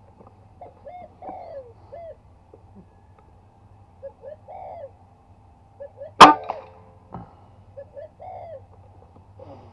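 Doves cooing in short repeated phrases, and about six seconds in a single sharp shot from an air rifle with a Lothar Walther Polygon barrel firing a 15.4-grain Jaeger slug. A fainter knock follows about a second later.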